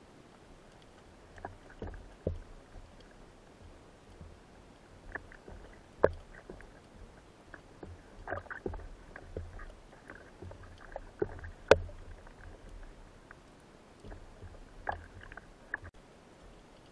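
Underwater handling noise from a speargun-mounted camera: irregular knocks and clicks as the speargun, shaft and line are handled, the two loudest about six and twelve seconds in, over a faint low rumble of water.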